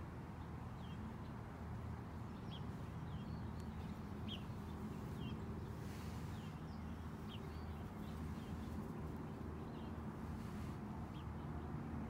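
Outdoor background: a steady low hum, with small birds chirping faintly and repeatedly throughout.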